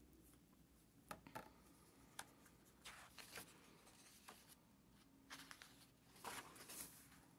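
Faint rustling and soft taps of a hardcover picture book being opened and its pages turned, in several short bursts.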